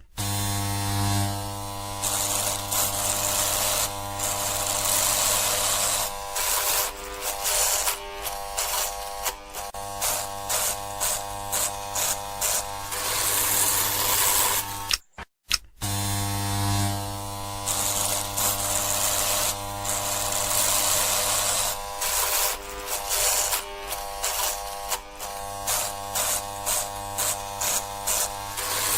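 Electric shaver buzzing steadily. After a few seconds its sound starts wavering with many brief dips. It cuts out briefly about halfway, and the same sequence repeats.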